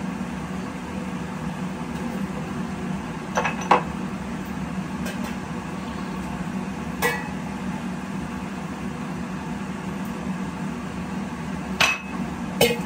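Steel pan and tea strainer knocking and clinking against glasses as tea is poured out: a double knock a few seconds in, one about halfway, and two more near the end, over a steady low hum.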